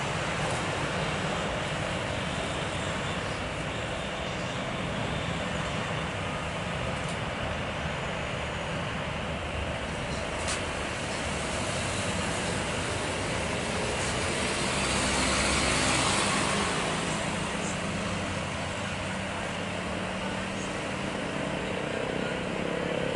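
Steady rushing roar of a Boeing 737 airliner's jet engines as it rolls down the runway after landing, swelling louder for a couple of seconds about two-thirds of the way through.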